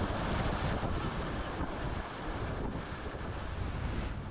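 High-water whitewater rapids rushing around an inflatable raft, a steady roar of water with wind buffeting the action camera's microphone.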